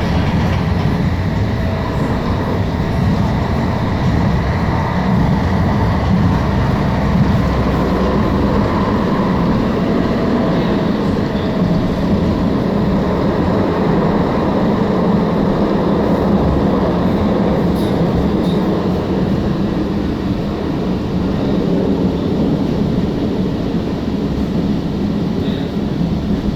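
Alstom Citadis Spirit light-rail train running between stations, heard from inside the passenger car: a steady rumble of wheels on rail and traction motors.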